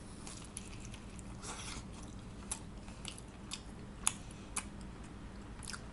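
A person chewing a mouthful of pizza, with soft, irregular crunches and mouth clicks.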